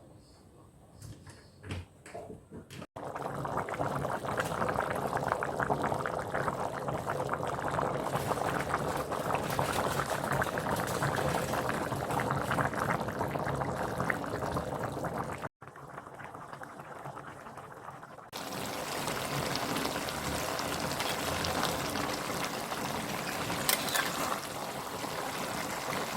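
Liquid bubbling and sizzling in a cooking pan as a dense, crackling hiss. It starts abruptly about three seconds in, drops away sharply past the middle, and returns a few seconds later.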